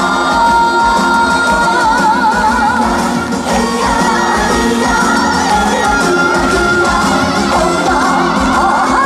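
Live trot song: a woman singing held notes with wide vibrato over an amplified band backing track.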